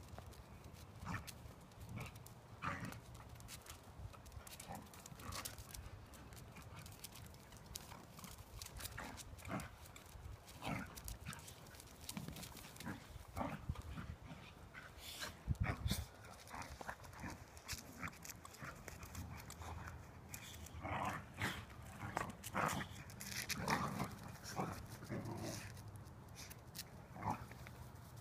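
Two dogs play-wrestling, growling in short, irregular bursts, which come thicker and louder in the last third.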